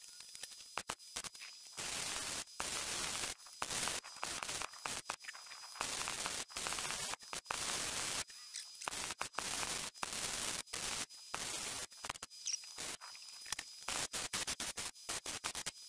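MIG welder arcing on the steel wall of a propane tank in stop-start bursts: a few runs of one to two seconds, then quicker short tacks near the end, as a strip is stitch-welded along the door opening.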